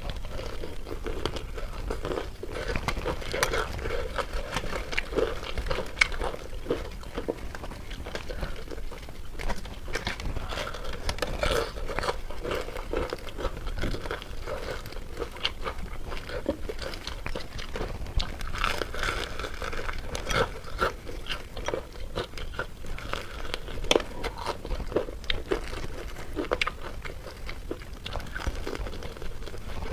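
Close-miked eating: crunchy bites and wet chewing, with irregular crackles throughout.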